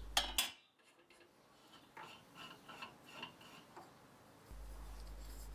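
A couple of sharp clicks at the very start, then faint scattered ticks as a wood lathe's tailstock is loosened and backed off to free the turned workpiece.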